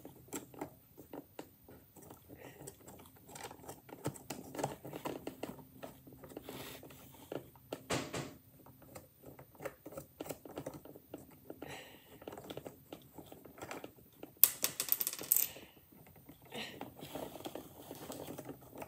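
Light clicks and taps of a wooden crane kit's parts and plastic pegs being handled and twisted, with a louder burst of rattling clicks about three-quarters of the way through.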